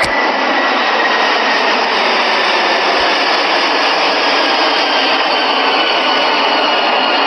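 Steady rushing noise of a jet airliner cabin, with faint high engine whines sliding slowly down in pitch. A sharp click sounds right at the start.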